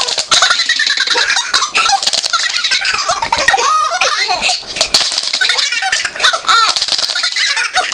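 Baby laughing hard in one long run of high-pitched, squealing laughs.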